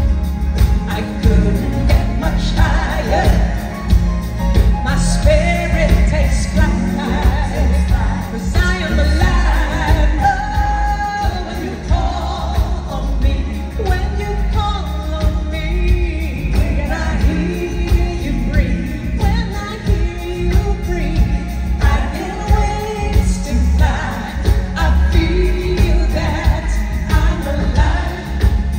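A woman singing a pop ballad live with a band of drum kit and guitars, with a strong, steady bass and drum part under the voice.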